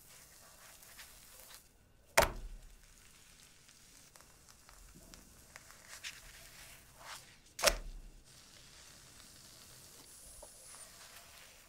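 Thin pancake batter sizzling faintly in a nonstick frying pan, with two sharp knocks, about two seconds in and again near eight seconds, of a wooden spatula against the pan as the pancake is lifted and turned over.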